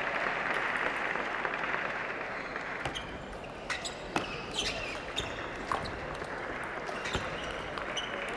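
Table tennis rally: the ball clicking sharply off the bats and the table in a quick, irregular series, starting about three seconds in. Before that, crowd applause fades out.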